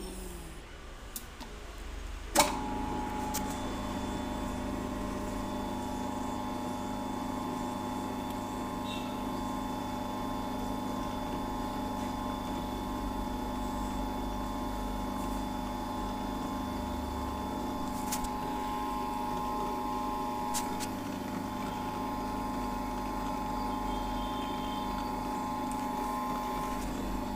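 Planetary mixer's electric motor switching on with a click about two seconds in, then running at a steady speed with an even hum made of several steady tones.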